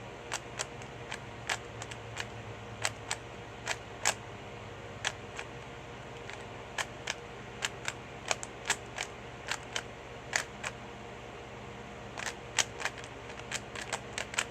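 Plastic 3x3 Rubik's cube being turned by hand: sharp, irregular clicks as its layers snap round, a few a second, coming more closely together near the end.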